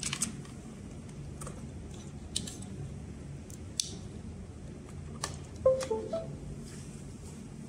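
Small plastic clicks and handling noise of a USB cable being plugged into a crossflight flight controller, then, a little under six seconds in, a short run of electronic beep tones as the USB connection is made.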